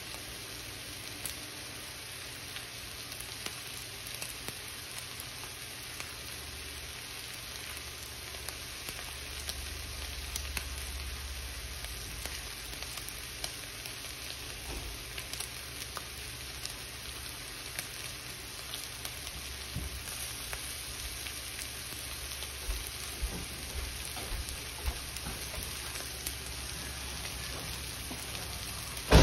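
Thinly sliced beef simmering and sizzling in a soy-based sauce in a cast iron skillet: a steady sizzle with scattered small pops and spits. A sharp thump lands at the very end.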